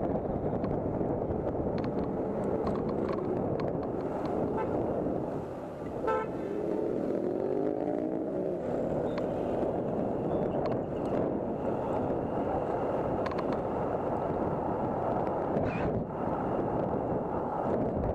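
Steady wind rushing over the action camera's microphone on a moving electric scooter, mixed with road noise. A short horn toot sounds about six seconds in.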